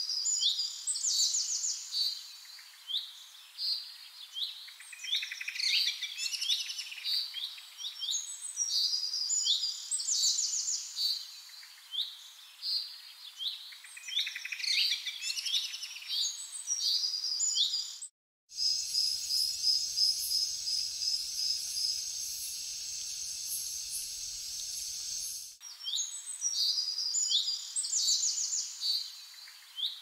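A songbird sings the same high, quick whistled phrase over and over, every few seconds. Partway through there is a short gap, then a stretch of steady hiss with a rapid, even run of about ten high notes, before the song phrases return.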